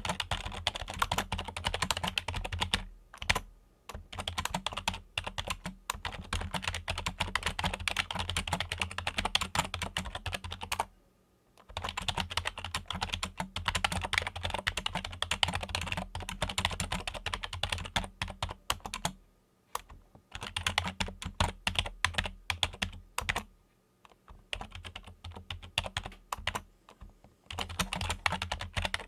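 Fingers typing fast on a Logitech computer keyboard, a dense run of key clicks broken by brief pauses a few times. A steady low hum sits underneath.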